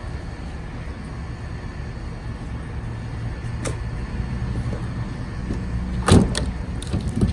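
Split hickory firewood logs being handled and stacked, with a few sharp wooden clunks about six seconds in and another near the end, over a steady low mechanical hum.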